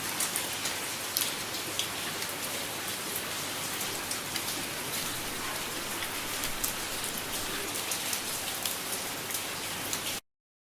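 Light rain falling steadily, an even hiss with many sharp close drop ticks, cutting off abruptly near the end.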